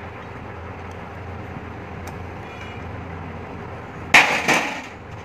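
A short metallic clatter in two quick knocks about four seconds in, from the LPG reducer's metal housing and fittings being handled, over a steady low background hum.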